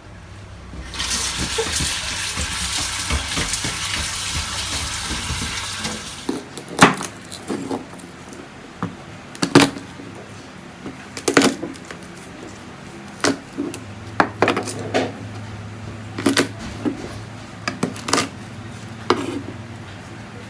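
Kitchen tap water runs for about five seconds as the salt-rubbed raw chicken is rinsed. Then come scattered clinks and knocks of dishes, a bowl and utensils being handled.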